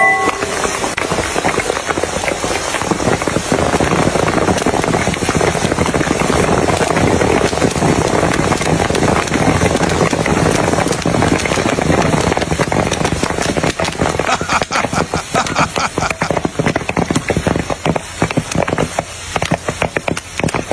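Popcorn kernels popping in hot oil in frying pans: a dense sizzle full of rapid pops, which become separate, spaced-out pops in the last few seconds as the batch finishes popping.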